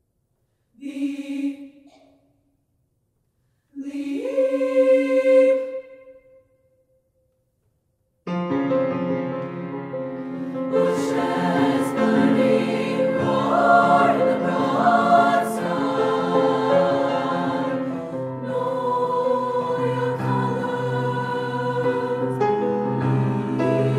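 High school women's choir singing: two short sung phrases broken by silences, then about eight seconds in the full choir comes in and sings on in sustained chords.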